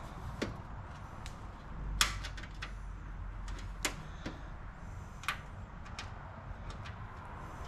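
Computer tower case's side panel being handled and fitted on: scattered sharp clicks and knocks, the loudest about two seconds in.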